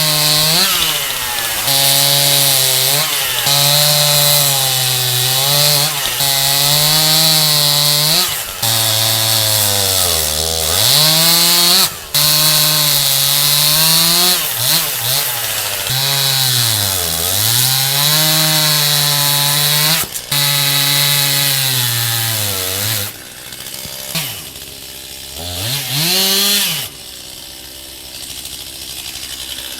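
Stihl MS 271 two-stroke chainsaw with a 20-inch bar, run at full throttle while cutting through an oak log. The engine pitch sags under load and recovers over and over, dipping deeply twice where the saw bogs in the big oak. Near the end it drops off, revs once briefly, and settles to quieter, lower running.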